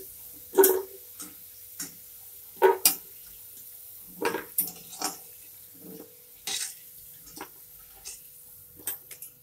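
Metal spatula knocking and scraping against a steel kadai and bowl as fried potato pieces are lifted out of the oil: a string of separate clinks and scrapes, the loudest about half a second, two and a half, four and six and a half seconds in.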